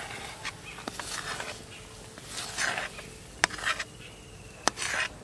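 A metal spoon scraping thick kheer out of a metal wok into a steel bowl: a series of short scrapes with a few sharp metallic clicks between them.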